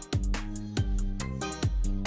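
Background music with a steady beat: sustained pitched notes over regular drum hits.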